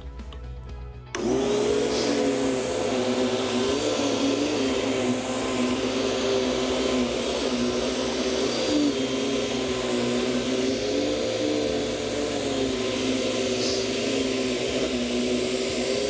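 Borelli Dual Pro dual-motor upright vacuum switched on about a second in, then running steadily: a rush of air from the suction motor and brush roll, with a whine that wavers slightly in pitch.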